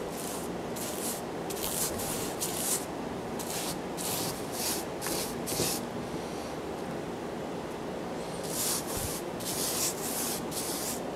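Paintbrush bristles swishing across a cabinet door as enamel paint is brushed on: a run of short brush strokes, about two a second, with a pause of a couple of seconds past the middle before the strokes resume.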